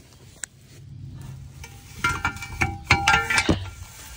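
Steel jacking gear being handled: a run of sharp metal clinks and clanks, each ringing briefly, starting about halfway through.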